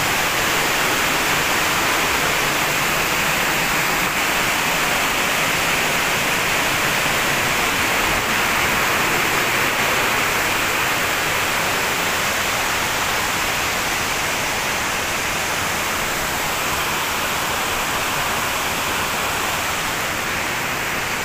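A steady, even rushing noise without breaks, strongest in the mid and upper range, like water flowing hard.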